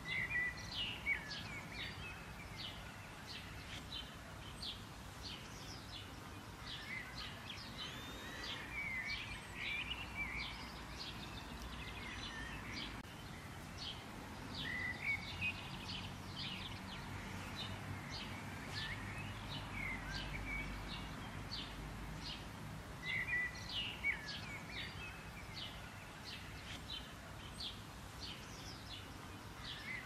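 Small songbirds chirping: a steady scatter of short, high chips with a few brief warbled phrases, over a low steady background hum.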